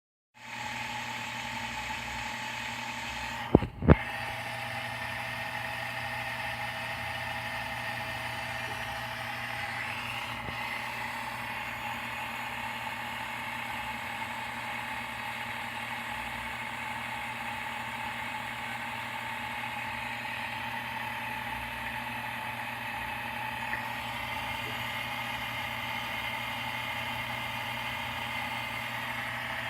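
Reverse osmosis water filter running with a steady, even hum made of several fixed tones. Two sharp clicks a fraction of a second apart come about four seconds in.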